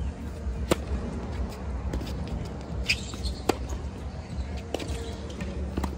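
Tennis ball struck with a racket on a serve about a second in, a sharp pop, then further hits and bounces as the rally goes on, over a steady low rumble.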